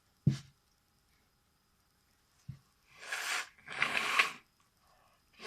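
A sharp knock near the start, then two breathy bursts of air through a runny nose about three and four seconds in, as someone clears their nose while trying to sneeze.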